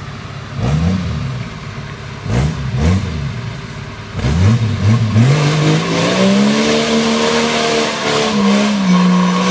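Off-road 4x4's engine revved in short blips, then held at high revs for several seconds while the wheels spin in mud, as the driver tries to get the vehicle out of a muddy spot.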